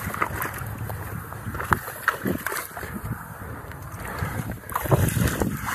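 Waders sloshing through shallow water: a person wading beside a small boat, with irregular splashes and bumps.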